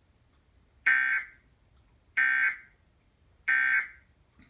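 Emergency Alert System end-of-message (EOM) tones: three short, identical bursts of SAME digital data tones about 1.3 seconds apart, the signal that closes the alert.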